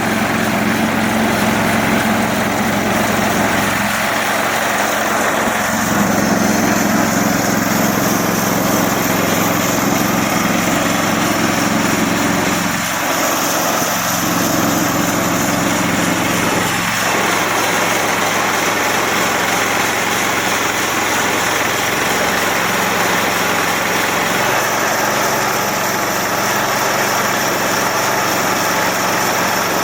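Small gasoline engine of a Harbor Freight band sawmill running steadily, driving the band blade.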